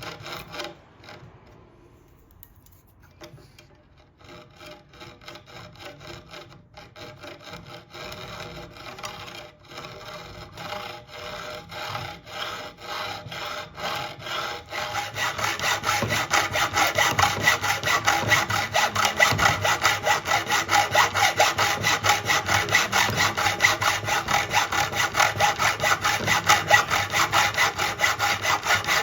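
Hand sawing through a copper-jacketed 7.62 NATO rifle bullet to cut it in half, in back-and-forth strokes. The strokes start faint and irregular, then about halfway through become louder, fast and even.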